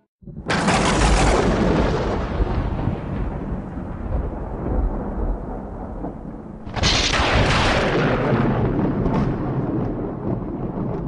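Two loud rumbling crashes, like thunder or an explosion: each starts suddenly and dies away slowly, the second about six and a half seconds in.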